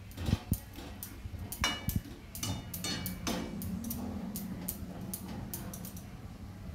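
Metal spatula clinking and scraping against a metal kadai as potatoes in gravy are stirred: a string of light taps and clicks, thinning out after about three seconds, with a low steady hum underneath from then on.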